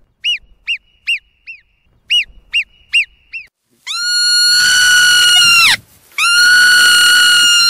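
Marmot whistle calls: two quick runs of four short chirps, then two long, steady, high whistles of nearly two seconds each that swoop up at the start and drop away at the end. These are the calls marmots use to call to one another or to warn of danger.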